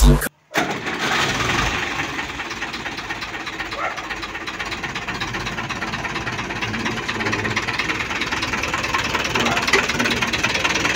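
Ursus C-4011 tractor's diesel engine idling steadily.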